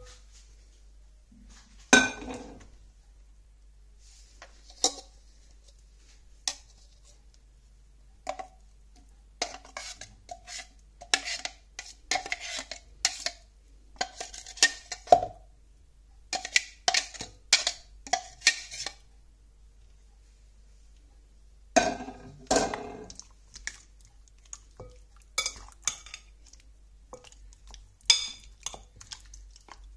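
A metal spoon clinking and scraping against glass bowls as a herb marinade is spooned onto raw chicken drumsticks and stirred through them. The clinks come in irregular runs: a few scattered taps at first, then busy stretches in the middle and near the end.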